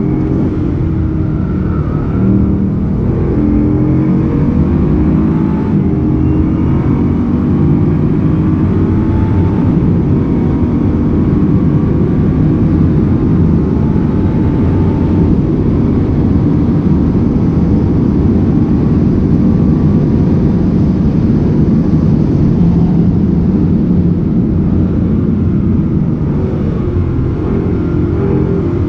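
Bugatti Chiron Sport's quad-turbo W16 engine heard from inside the cabin at speed. The engine note climbs and drops over the first several seconds, then settles into a steadier, loud drone mixed with road noise.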